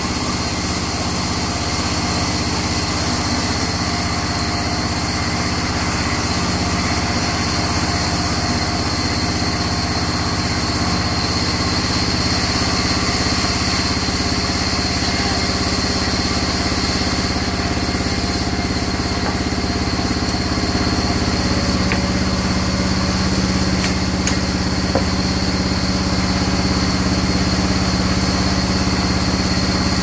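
Sawmill vertical band saw and its drive running steadily while a long mahogany plank is ripped along the blade, a constant even drone with no pauses.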